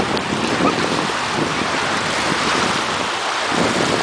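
Sea surf washing onto a sandy beach, with wind buffeting the microphone.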